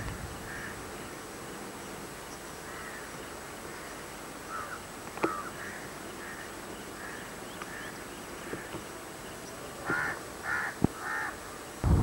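Crows cawing repeatedly, with three louder caws in quick succession about ten seconds in. Two sharp clicks stand out, one near the middle and one near the end.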